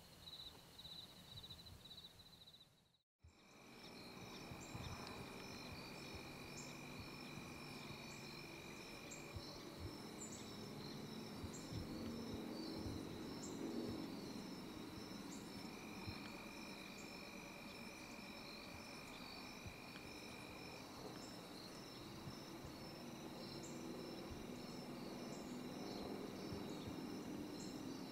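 Crickets and other insects chirping and trilling steadily, with a longer, lower steady trill that sounds for several seconds twice. The sound drops out briefly about three seconds in, where a different pulsing high insect trill gives way to this chorus.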